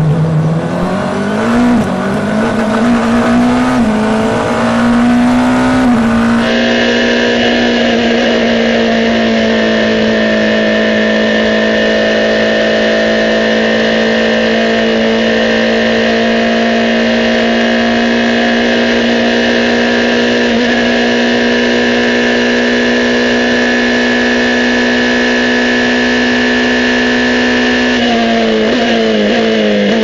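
Onboard sound of open-wheel racing car engines. First a single-seater's engine revs up through gear changes. Then a British F3 car's engine is held flat out at a steady high pitch, about 6,800 rpm in sixth gear, before it brakes and downshifts near the end.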